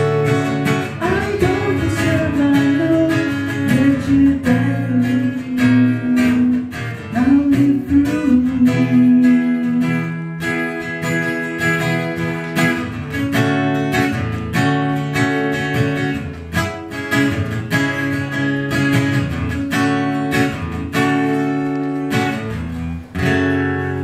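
Acoustic guitar strumming chords in the closing bars of a slow worship song. Over the first several seconds a held, wordless sung line glides up and down before the guitar carries on alone.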